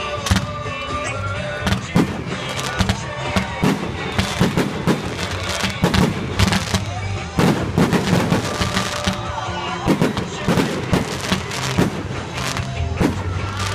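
Fireworks going off in quick succession, many sharp bangs and pops that come thickest in the middle, with music playing underneath.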